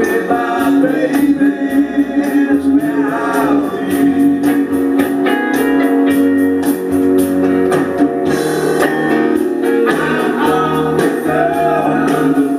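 Live band rock music with guitar and a singing voice.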